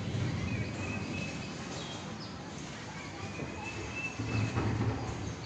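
Outdoor ambience: a steady low rumble with two thin, drawn-out whistling bird calls, the first about half a second in and the second about three seconds in.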